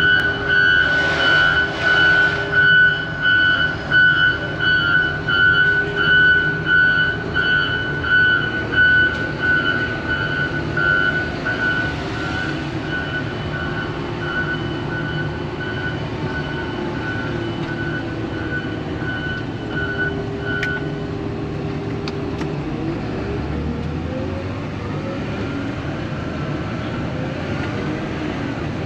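John Deere 624K wheel loader's reverse alarm beeping about one and a half times a second over its running diesel engine, heard from inside the cab as the loader backs up. The beeping stops about two-thirds of the way through and the engine keeps running steadily.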